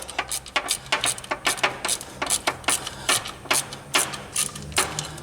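Light metallic clicking from a 10 mm wrench working a small bolt loose on the engine, about four clicks a second, over a faint steady hum.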